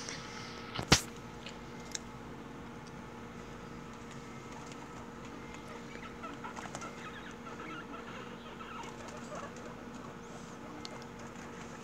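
Guinea pigs making short clucking sounds, mostly in the second half, over a steady background hum. A single sharp knock about a second in is the loudest sound.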